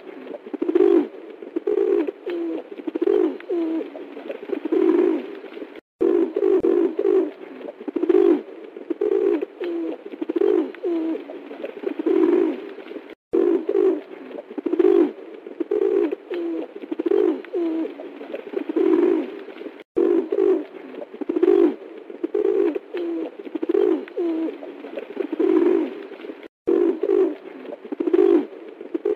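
Pigeon cooing: a steady run of low coos, a little more than one a second, with brief silent gaps every six or seven seconds.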